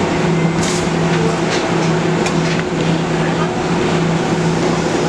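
Steady ventilation hum with a constant rushing noise, marked by a few faint clicks.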